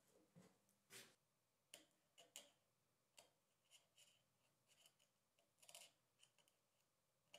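Very faint, irregular clicks and scratches of a scalpel blade cutting and lifting covering film from the strut slots of a covered balsa tailplane.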